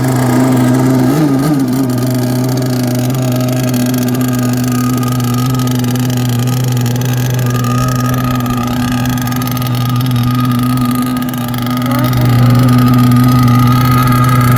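Radio-controlled thunder boat's motor running at a steady, held pitch, growing louder about twelve seconds in.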